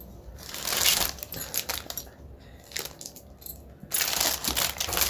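Packaging being handled with dense crinkling and crackling: a burst about half a second in, then steady crinkling again from about four seconds in.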